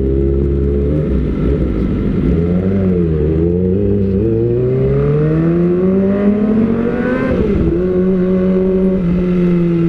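Kawasaki ZX-25R's 250 cc inline-four, fitted with an aftermarket Austin Racing silencer, revving up under acceleration. The pitch climbs steadily, drops suddenly at an upshift about three-quarters of the way in, then holds fairly steady.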